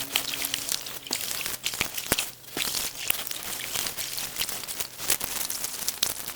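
Rustling, crinkling plant matter and small splashes and drips of water as lotus-pond vegetation is handled, with many irregular small crackles and ticks.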